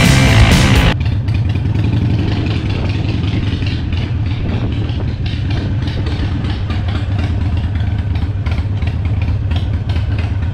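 Harley-Davidson Sportster 883 Iron's air-cooled V-twin idling steadily, after rock music with electric guitar cuts off about a second in.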